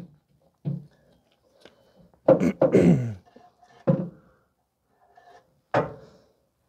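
Metal clunks and knocks from the new rear shock absorber and its mounting bolt being worked into the lower mount and lined up: one about a second in, a louder cluster about two and a half seconds in, another near four seconds and one near six seconds.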